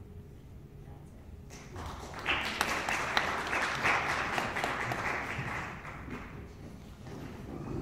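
Audience applauding, starting about a second and a half in, swelling quickly and then dying away near the end.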